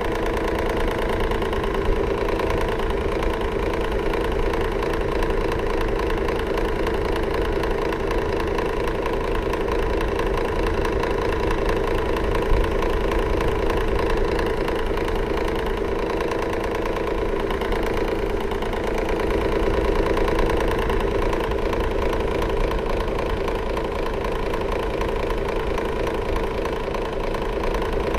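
Electric fan running steadily, with a constant motor hum and a fine, rapid rattle.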